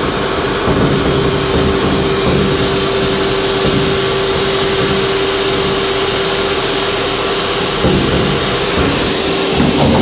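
CNC vertical mill (a 1995 Haas VF-3) cutting a metal block with an end mill: the spindle runs steadily with an even hiss and a steady mid-pitched cutting tone, which falters briefly about eight seconds in.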